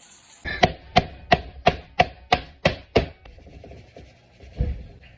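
Chopping on a wooden cutting board in the kitchen: eight sharp, evenly spaced knocks, about three a second, followed by one heavier thump near the end.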